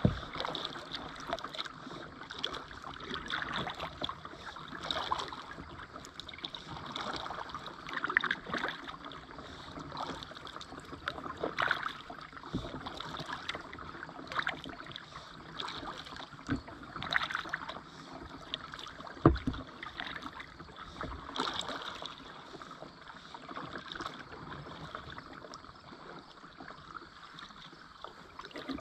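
Kayak paddling: a paddle dipping and splashing in calm water every couple of seconds, with water dripping from the blades, on an Oru Beach LT folding kayak. A few knocks come through, the loudest about two-thirds of the way through.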